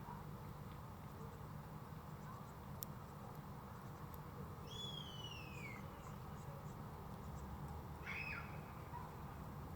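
A bird calls twice: a clear call sliding downward in pitch about five seconds in, then a shorter call near eight seconds. Both sound over a faint, steady low rumble.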